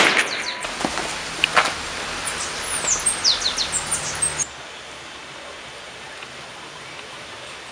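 A single sharp pistol shot right at the start. It is followed by steady outdoor background noise with birds chirping several times about two to four seconds in. The background drops abruptly about four and a half seconds in.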